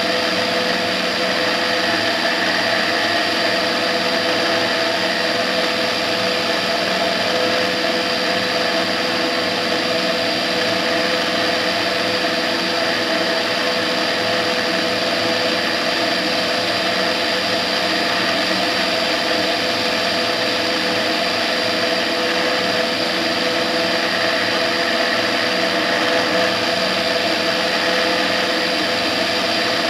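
Tetras ultralight aircraft in cruising flight: the engine and propeller drone steadily at constant power, mixed with rushing wind noise over the externally mounted camera.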